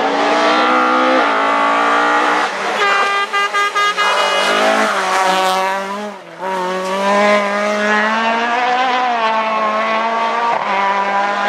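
Rally car engine revving hard through gear changes as it drives through a hairpin. The engine stutters choppily about three seconds in, and the revs drop sharply about six seconds in, then climb again as it accelerates away.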